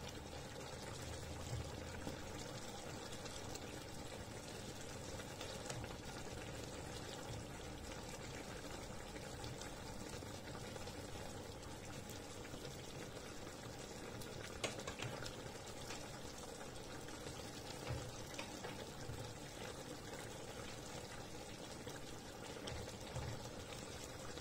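Chicken thighs simmering in a soy-and-lemon marinade sauce in a frying pan, a steady, quiet bubbling as the watery sauce reduces. One sharp click partway through.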